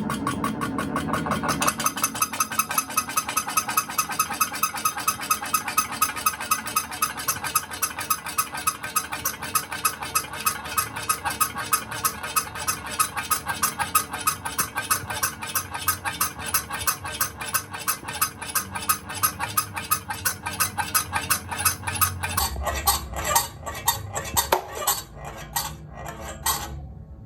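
Electric fan squeaking rhythmically as it turns, about three squeaks a second. Near the end the squeaks come further apart and less evenly.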